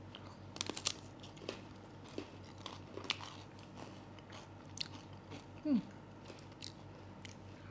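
Crisp crunching as a homemade cracker topped with bean dip is bitten and chewed. A cluster of crunches comes about a second in, then scattered crunches follow.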